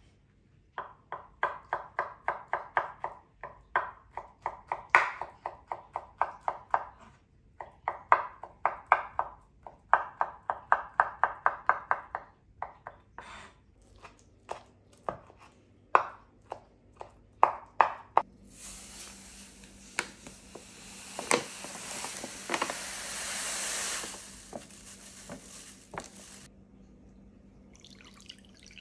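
Kitchen knife chopping boiled Seville orange peel on a wooden chopping board, in quick runs of about five strokes a second, then slower single cuts. In the second half comes a steady hiss lasting about eight seconds that cuts off suddenly.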